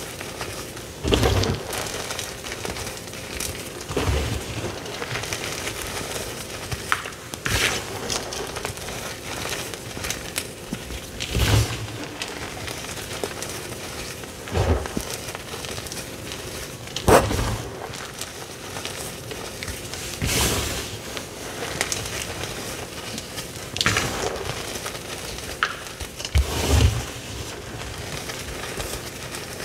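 Crumbled teal-dyed gym chalk crushed and squeezed in bare hands: a steady gritty crunching and sifting of grains, with a louder crunch about every three seconds as the fists close on a fresh handful.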